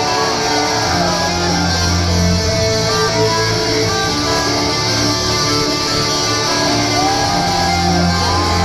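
Live metalcore band playing loudly, with electric guitars to the fore over sustained low bass notes.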